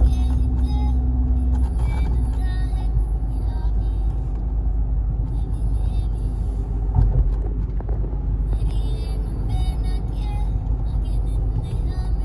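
Car driving at expressway speed, heard inside the cabin: a steady low rumble of road and engine noise, with a single thump about seven seconds in.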